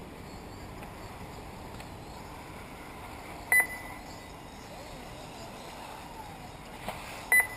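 Steady outdoor background hiss, broken by a short, high ringing ping about three and a half seconds in and a quick double ping near the end.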